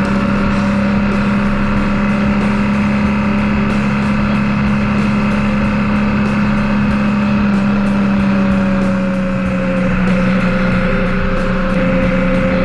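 Motorcycle engine running at a steady cruising speed. The note eases off slightly about nine seconds in, then picks back up.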